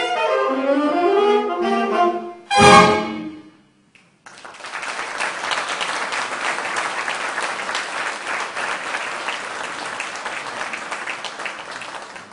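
Jazz big band of saxophones, trumpet and trombone playing the closing phrases of a shuffle, ending on a loud full-band chord about two and a half seconds in that dies away within a second. After a brief silence, audience applause runs steadily to the end.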